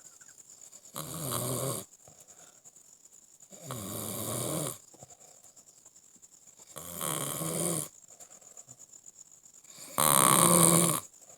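Snoring: four long, rattling pitched snores about three seconds apart, each lasting about a second, the last one the loudest.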